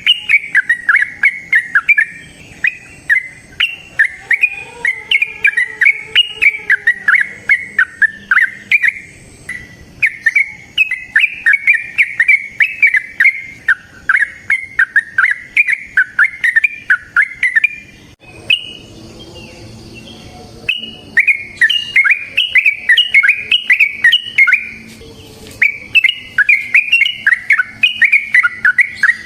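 Yellow-vented bulbul (trucukan) singing its long, rapid, bubbly song: fast runs of loud chirping notes in four long phrases, broken by a pause of about three seconds past the middle and a short one near the end.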